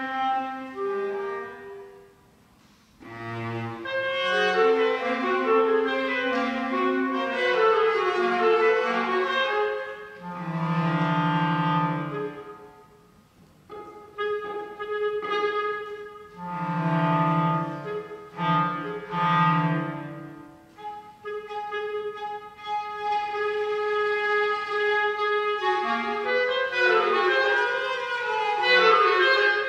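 Clarinet and cello playing a contemporary chamber duet in phrases separated by brief pauses, the cello bowed beneath the clarinet line.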